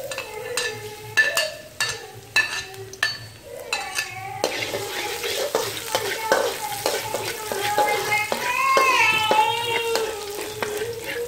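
Minced garlic frying in hot oil in a metal wok as a metal ladle stirs and scrapes it around the pan. Sharp metal taps and clinks come through the first few seconds, and a steady sizzle takes over about four seconds in.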